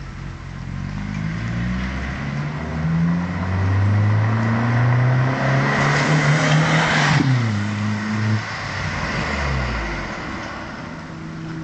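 Audi 80 B4's 2.0-litre four-cylinder (ABK) engine through a stainless-steel Supersport exhaust, accelerating toward the listener with rising pitch. Its pitch drops sharply as it passes about seven seconds in, with tyre hiss on the wet road swelling as it goes by. It then pulls away and fades.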